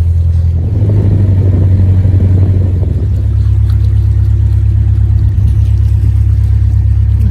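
Narrowboat's diesel engine running steadily as the boat cruises, a loud low hum whose note shifts slightly about a second in and again about three seconds in.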